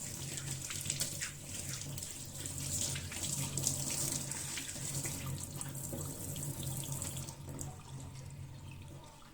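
Tap water running into a sink while kitchenware is washed, with small knocks of dishes under the stream. The water is shut off about seven seconds in.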